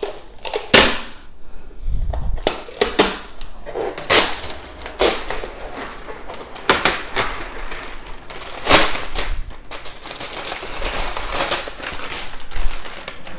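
Protective plastic film being peeled off a 3D printer's bed: a run of sharp crackles and rips, with a denser stretch of crackling near the end.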